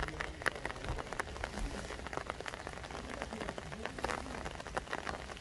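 Rain falling: a steady hiss with many irregular drop ticks.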